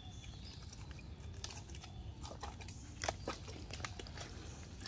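Wet mud squelching and crackling as gloved hands dig into a mud crab's burrow, with scattered small clicks and one sharper snap about three seconds in.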